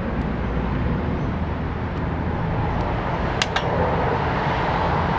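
Steady rumble of road traffic and vehicle engines running nearby, with a few sharp metallic clicks, about two and three and a half seconds in, from an Allen key working the screws on a motorcycle engine cover.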